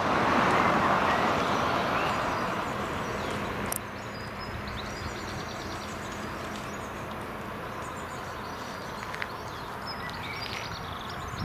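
A vehicle passing fades out over the first four seconds. Then small birds chirp and twitter over a steady hum of distant traffic.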